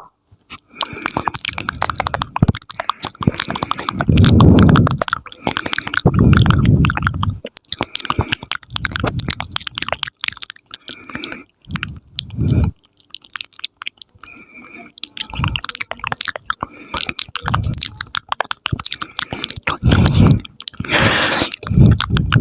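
Close-miked ASMR mouth sounds: wet clicks, smacks and pops from the lips and tongue, in bursts separated by short pauses.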